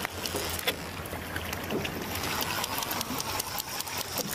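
Boat engine idling with a steady low hum, with scattered sharp clicks over it.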